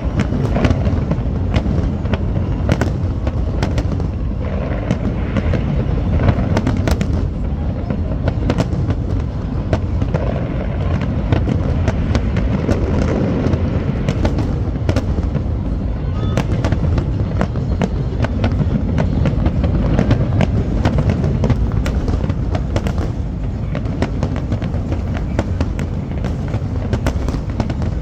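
Large fireworks display: a continuous barrage of bangs and crackling over a deep, steady rumble of booms.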